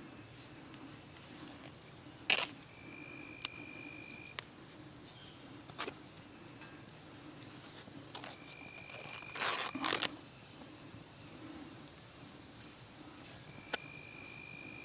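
Knife cutting a cotton handkerchief into small pieces: scattered soft clicks and snips, with a louder burst of cutting about nine and a half seconds in. Faint insect trilling in the background.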